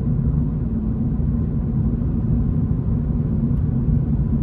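Toyota GR86's 2.4-litre flat-four engine and road noise heard from inside the cabin, a steady low drone while cruising, the engine held below 4,000 rpm during its break-in miles.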